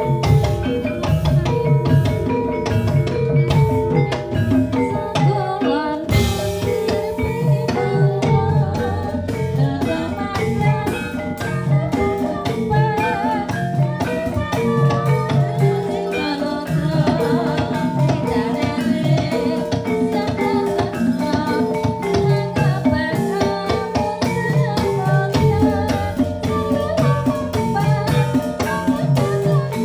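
Music with a steady drum beat under melodic instrument lines, accompanying a kuda lumping horse dance.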